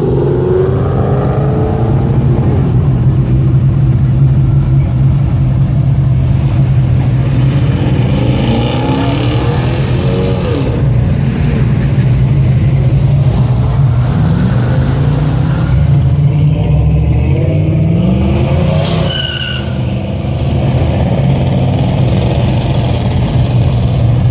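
Car engines running, with the pitch rising and falling several times as engines rev. A steady low hum lies underneath throughout.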